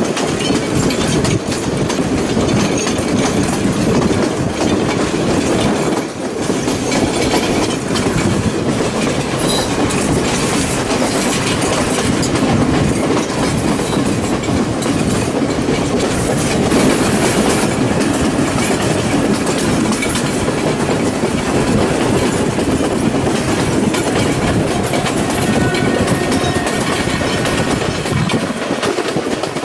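A passenger train running along the track, heard from on board: steady rumbling running noise with the wheels clattering over the rails, easing briefly about six seconds in.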